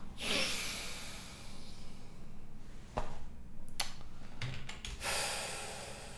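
A man's heavy sigh blown into a close microphone, a few keyboard key clicks, then a second long sigh about five seconds in; the sighs are of frustration.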